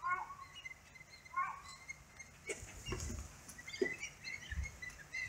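Faint, scattered short high calls from a flock of black kites swooping over a river to be fed, mixed with a distant child's voice and a few low thumps of wind on the microphone.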